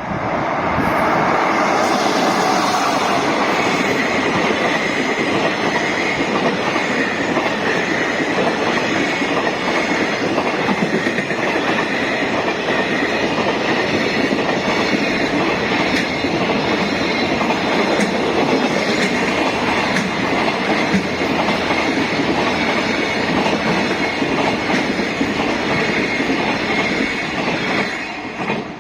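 Long freight train passing close by: a steady rolling rumble with the wheels clicking over rail joints for nearly half a minute. It drops away near the end as the last wagons pass.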